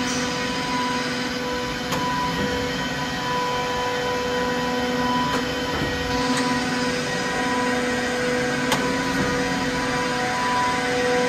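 Camut Maxi 825 surface grinder running: a steady machine hum with a constant pitched tone, and a few faint ticks.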